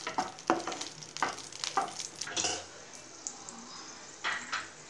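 A spatula scraping and stirring nuts and raisins frying in a nonstick kadai, over a steady sizzle. The strokes come in a quick run of short scrapes through the first half, then two more near the end.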